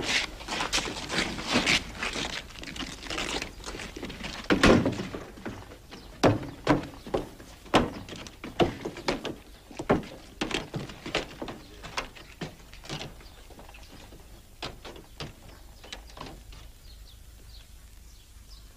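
A run of irregular knocks and thuds. They are dense in the first few seconds, the loudest comes at about four and a half seconds, then they come singly and thin out, fading after about sixteen seconds.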